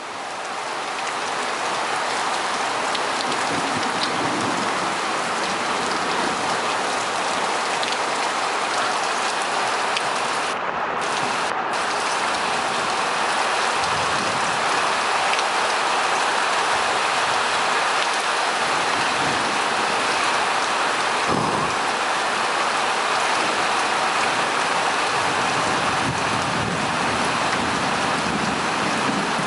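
Heavy thunderstorm rain pouring down in a steady, dense hiss, with a few low rumbles of thunder underneath.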